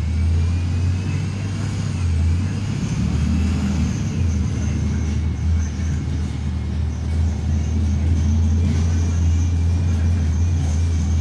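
Inside a Volvo B290R city bus under way: a steady, deep engine rumble with road noise, and a faint whine that rises and falls in pitch.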